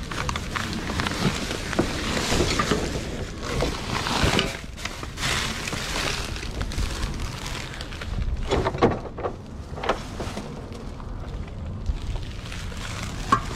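Clear plastic trash bags rustling and crinkling as they are grabbed and pulled about in a dumpster, with irregular crackles and knocks from the handling.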